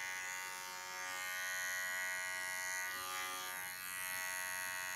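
Small cordless dog-grooming clipper running with a steady electric buzz as it shaves the hair on a poodle's foot, its pitch wavering briefly about three seconds in.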